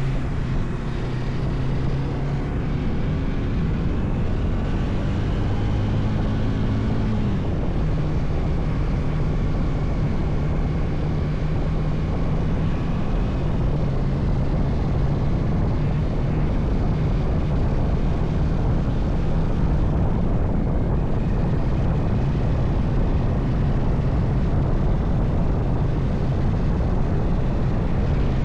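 Bajaj Dominar 400 motorcycle's single-cylinder engine running while riding, over a steady rush of wind and road noise. The engine note rises over the first several seconds, falls about seven seconds in, then holds steady.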